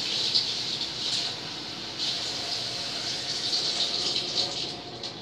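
A water tap running in a steady stream, then easing off near the end.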